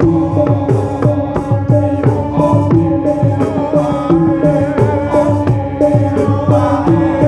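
Live music: rapid hand-drum strokes over sustained electronic organ notes.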